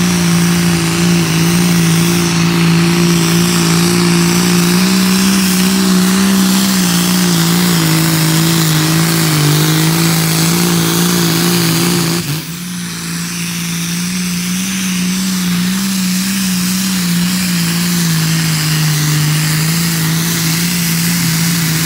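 A pulling tractor's engine running hard at steady high revs under load against the sled, its pitch wavering only slightly. About halfway through the sound changes abruptly and dips briefly, then the engine note carries on.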